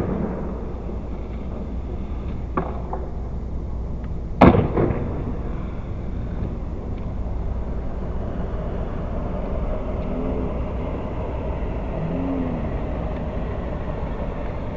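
Skateboard on location: a loud sharp clack of the board hitting the ground about four and a half seconds in, and a lighter knock about two seconds before it, over the steady rumble of the wheels rolling on the plywood and concrete deck.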